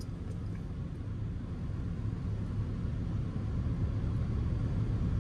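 Low, steady rumble of engine and road noise inside a Ram pickup truck's cabin while driving, growing gradually louder.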